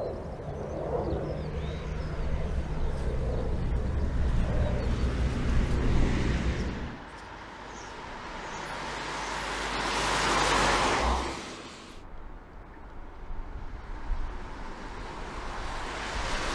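Mercedes Sprinter 316 CDI pickup driving past on the road. The tyre and engine noise swells to a peak about ten seconds in and fades, then builds again near the end as the van approaches once more. A steady low rumble fills the first seven seconds.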